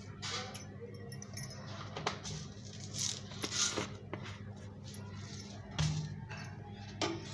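Scattered small clinks and taps of a spoon and fenugreek seeds against a small bowl as the seeds are tipped into the oil, over a steady low hum.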